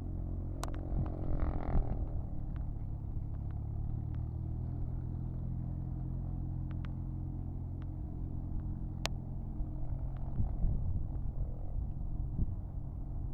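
Low, steady engine rumble with a few sharp clicks, and a falling pitch near the start.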